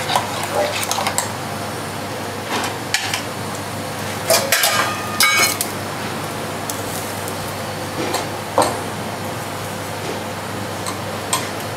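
Stainless-steel kitchenware clinking and clattering as pots, a ladle and a wire-mesh basket are handled, with a short run of rattling clinks about four to five seconds in and scattered single clinks otherwise, over a steady background hum.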